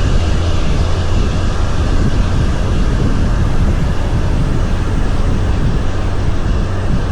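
Heavy semi truck's diesel engine running steadily under load with road noise, a constant low drone, hauling a heavy excavator load.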